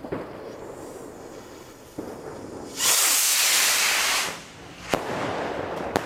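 Firework rocket from a Weco Highspeed-Bombs assortment launching with a loud hiss of about a second and a half, then bursting with a sharp bang about a second later. A second crack comes just before the end, with crackle trailing after.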